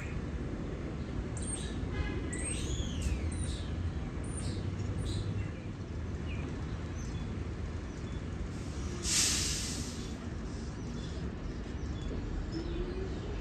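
Birds chirping in short arched calls over a steady low rumble of station and street noise, with a brief sharp hiss about nine seconds in.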